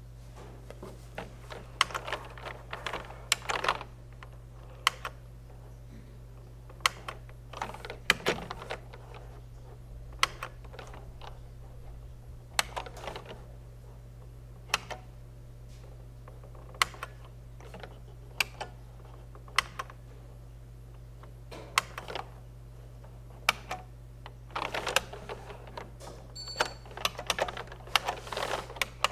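Keys on an old beige PC keyboard pressed one at a time, sharp single clicks a second or two apart, with short runs of quick typing near the start and again near the end. A steady low hum runs underneath.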